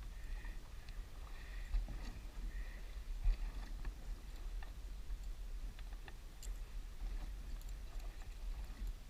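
Choppy waves slapping and lapping against the hull of a bass boat under a steady low rumble, with scattered light clicks from handling the rod and reel.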